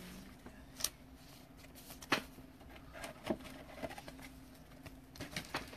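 Trading cards and a plastic card sleeve being handled: soft rustling and a few sharp plastic clicks spread through, over a faint steady hum.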